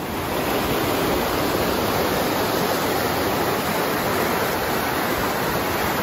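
Fast-flowing mountain stream rushing over rocks: a steady, dense whitewater sound that comes up in level just after the start.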